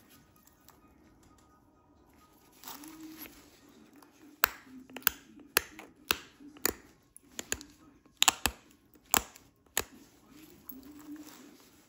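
Heat-treated Flint River chert being pressure flaked: a run of about a dozen sharp clicks, unevenly spaced about half a second apart, as small flakes snap off the edge. A soft low rustle comes before the clicks.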